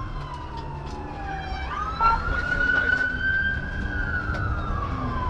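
Police car siren wailing: its pitch falls slowly, sweeps back up about two seconds in, then climbs and begins to fall again, over a steady low road rumble from the pursuing cruiser.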